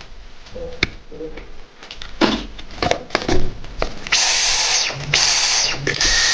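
A few clicks and knocks of handling. About four seconds in, a vacuum cleaner's motor starts and runs loudly and steadily, cutting out briefly twice, as it is test-run on its newly replaced switch.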